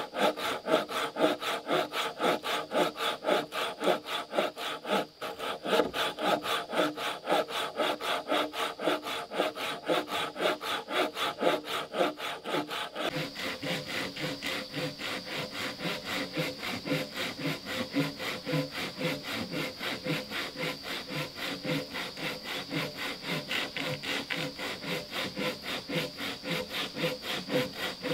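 Hand saw cutting through a wooden log in steady back-and-forth strokes, about three a second. About halfway through the strokes take on a different, lower tone.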